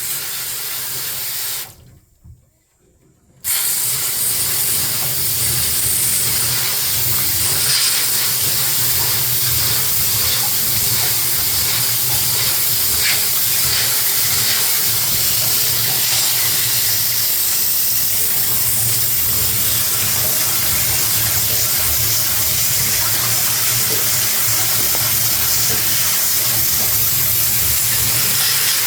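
Vacuum cleaner running with a steady airflow hiss: a short run at the start, cut off for about two seconds, then switched on again about three and a half seconds in and running steadily.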